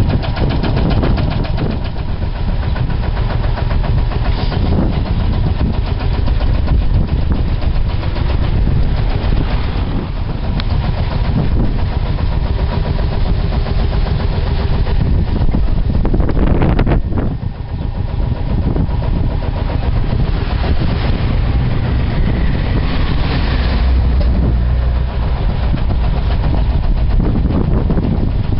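Vintage tractor engine running steadily with an even, rapid beat.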